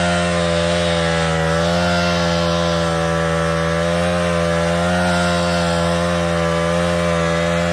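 The small engine of a portable winch running steadily under load as it drags a long log, its pitch holding nearly even throughout.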